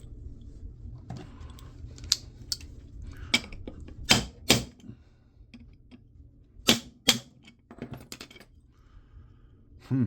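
Irregular sharp clicks and taps of small metal tools and parts while a laptop hard drive is being taken apart, the loudest coming in pairs about four seconds and about seven seconds in, over a steady low hum.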